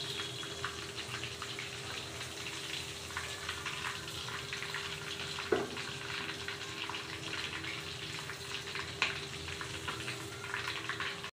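Besan-coated chicken pieces deep-frying in hot oil in a large aluminium kadhai: a steady sizzle with fine crackling, over a faint steady hum. Two sharp knocks come through, about halfway and near the end.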